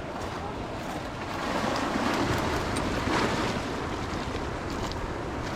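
Sea waves breaking and washing up the beach, one wave swelling about a second and a half in and peaking around three seconds before easing off, with wind rumbling on the microphone.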